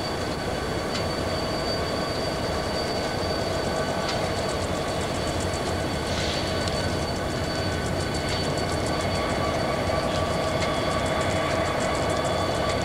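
Southern Pacific diesel-electric locomotives in dynamic braking, holding a freight back on a downgrade: a steady multi-toned whine over the rumble of the units. A fast, even ticking comes in after a few seconds.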